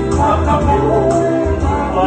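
Live song performed with men's singing, an electronic keyboard and an acoustic guitar, over a steady low accompaniment. The music is in the Tongan kalapu style.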